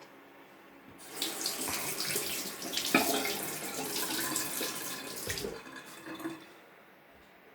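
Water running from a tap into a sink for about five seconds, starting about a second in and cutting off near the end, with a sharp knock about three seconds in.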